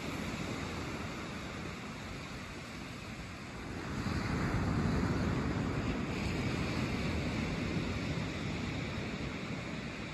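Small waves breaking and washing up a sandy beach: a steady surf hiss that swells about four seconds in as a wave breaks, then slowly eases.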